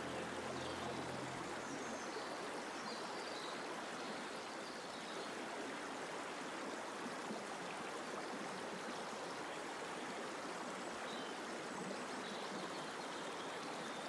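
Steady rush of flowing stream water. The last of the background music fades out in the first second or two.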